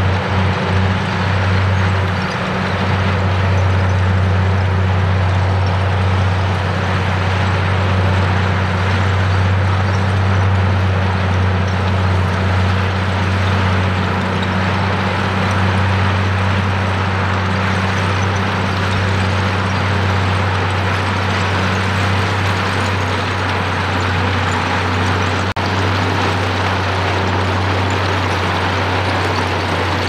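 Komatsu D85E bulldozer's diesel engine running steadily under load with a deep, even hum, as the blade pushes a heap of crushed stone, the rock grinding and scraping along.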